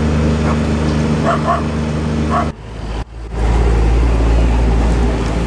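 An engine running steadily while a dog barks a few times. About two and a half seconds in the sound breaks off and gives way to a louder, deeper rumble of vehicle engines close by.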